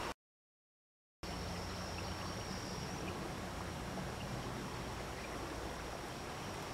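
Steady, low-level outdoor creekside ambience: an even hiss with a faint, steady high-pitched tone above it. It follows about a second of dead silence near the start.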